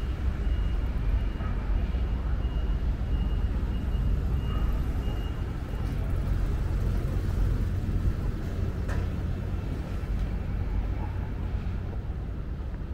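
Steady low rumble of city street traffic, with a single sharp click about nine seconds in.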